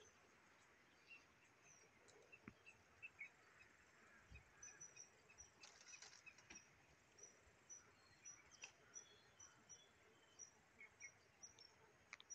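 Near silence: quiet pond-side ambience with faint, short, high-pitched chirps repeating irregularly, and a few soft clicks.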